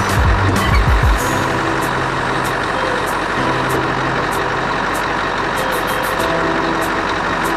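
Scania R500 truck's V8 diesel engine running steadily while parked, with a stronger low rumble during the first second.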